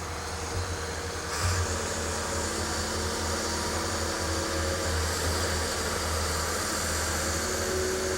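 Backhoe engines running steadily, getting louder about a second and a half in as the machines start digging.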